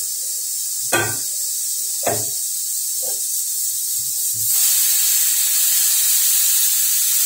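Stainless-steel utensils clank sharply twice, then once more softly, as dough is set into a steel container. About four and a half seconds in, a pressure cooker boiling potatoes starts hissing steam, suddenly louder, and keeps on steadily.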